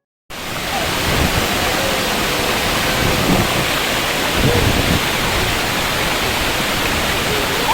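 Waterfall: a loud, steady rush of falling water that cuts in suddenly right at the start, with faint voices under it.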